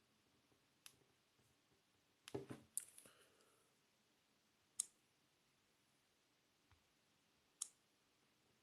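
Near silence broken by a few faint isolated clicks and taps: one about a second in, a short flurry a little later, and single sharper clicks around the middle and near the end.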